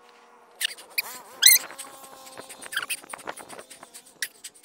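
Edited-in comic sound effects: a faint held tone with squeaky, whistle-like pitch glides over it, two rising about half a second apart and one falling a little later. Scattered light clicks follow near the end.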